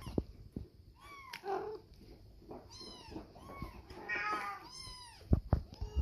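Domestic cat meowing over and over, short meows that rise and fall in pitch, with two sharp knocks a little after five seconds in.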